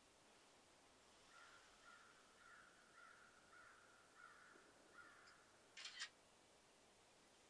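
Faint series of about eight harsh bird calls, roughly two a second, followed about six seconds in by a short, louder hissing burst.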